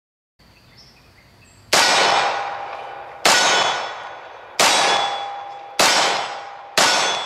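Five shots from a Colt 1911 .45 ACP pistol, each hit on an AR-500 steel target plate ringing out in a clang that fades over about a second. The shots come at uneven spacing, about a second to a second and a half apart.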